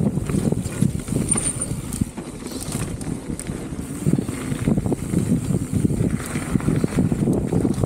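Specialized Status 160 mountain bike rolling over rough trail: a steady rumble of tyres on dirt with dense rattling and clicking from the bike's parts, and wind on the microphone.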